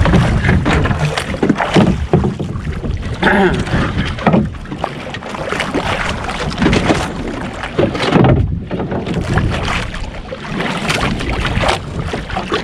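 Wind buffeting the microphone and choppy water splashing against a small outrigger canoe, an uneven rushing that swells and drops.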